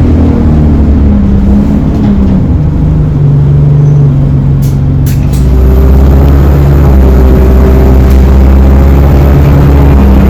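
ADL Enviro 200 single-deck diesel bus heard from on board, running at low speed. A few short clicks come about five seconds in, then the engine note and a whine from the drive axle rise as the bus pulls away. The uploader calls the axle's whine weird and says it sounds electric.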